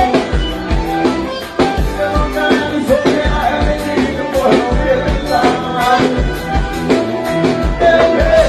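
Upbeat band music with a steady drum beat, bass and melodic lines.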